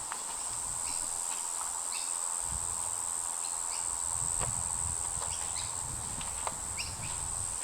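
Insects keep up a steady, high-pitched drone, with short faint chirps scattered through it and a low rumble underneath.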